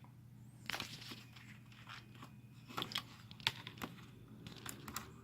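Faint, irregular plastic clicks and handling noises from a Sony HDR-CX240E camcorder as an SD card is worked in and out of its card slot.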